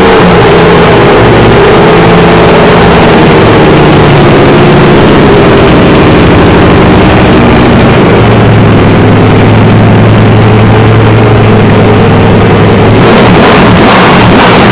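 Ducati Desmosedici RR's 989 cc desmodromic V4 engine running on a stand, very loud. The pitch shifts early on, settles into a steady low idle a little past halfway, and turns rougher again about a second before the end.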